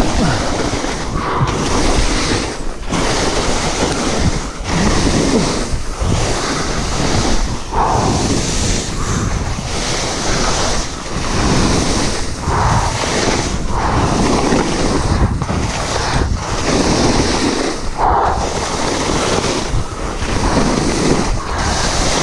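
Skis scraping and carving through snow in a run of linked turns, the rush easing briefly between turns about every one and a half to two seconds, with wind buffeting the camera microphone.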